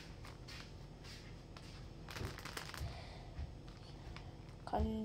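Grapes being handled and moved about on a plate: light, scattered clicks and rustles. Near the end a girl's voice starts a short held sung note.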